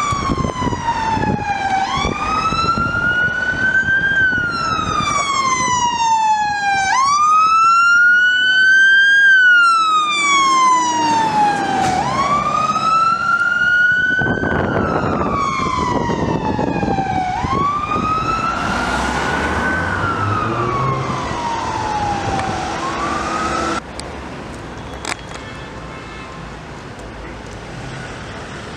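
Fire engine's siren sounding a rising and falling wail: a quick rise and a slower fall, about one cycle every five seconds. The appliance's engine accelerates underneath near the middle. The siren cuts off abruptly about two-thirds of the way in, leaving quieter road traffic.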